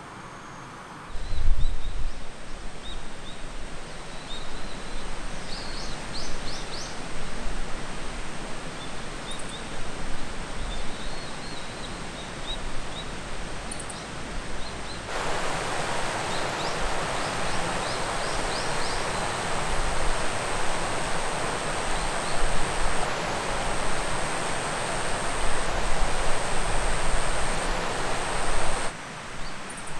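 A river flowing over rocks: a steady rush of water, with a few short bird chirps, starting about a second in. About halfway through the rush grows louder and fuller, with a thin, steady high whine over it.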